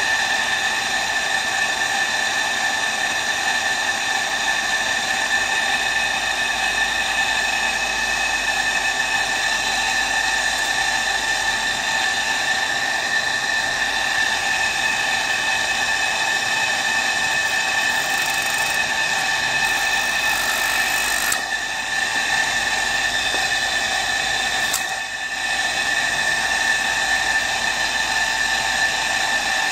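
Single-phase electric motor spinning a sandpaper disc used as a knife sharpener, running with a steady high whine that dips briefly once.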